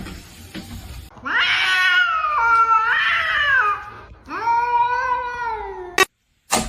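A cat yowling: two long drawn-out calls, the first wavering up and down in pitch, the second steadier and dropping at its end before it cuts off abruptly.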